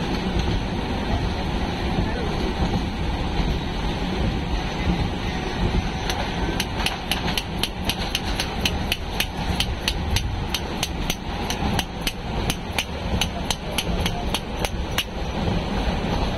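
Jhalmuri vendor's steel mixing tumbler being shaken to toss puffed rice with spices: rapid, even metallic clacking about four times a second, starting about six seconds in and stopping near the end. Beneath it runs the steady rumble of the moving train carriage.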